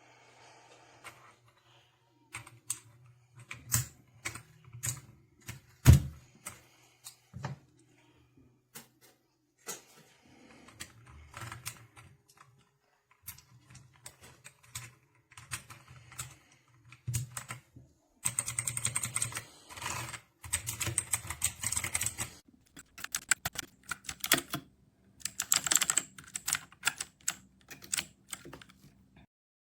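Typing on a Dierya T68SE 60% mechanical keyboard with red linear switches: scattered keystrokes with one louder knock about six seconds in, then two runs of fast continuous typing in the second half.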